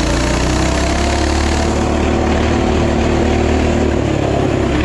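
Mini bike's small engine running under throttle while being ridden, its pitch rising a little in the first second and then holding steady.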